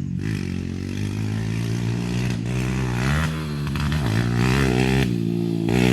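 Kawasaki KLX140L's single-cylinder four-stroke engine being ridden hard, its pitch rising and falling as the throttle is opened and rolled off, dipping twice past the middle.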